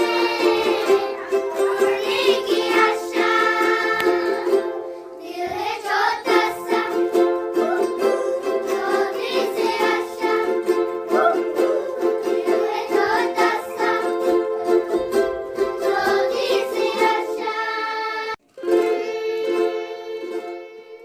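A group of children singing together while strumming ukuleles. The music cuts out abruptly for a moment near the end, then picks up again.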